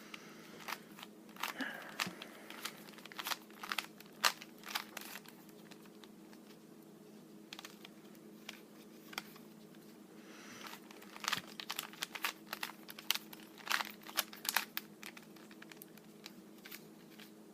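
Plastic Rubik's Cube layers being twisted by hand: runs of quick clicks and clacks in two spells, with a quieter pause between, over a steady low hum.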